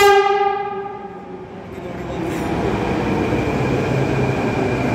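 Short horn blast from an arriving BEML Delhi Metro train, the loudest moment, fading away within about a second. Then the train running in along the platform: a steady rumble with a thin, high, steady whine.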